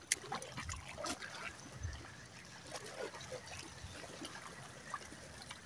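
Faint trickling and lapping of shallow seawater, with one sharp click just as it begins.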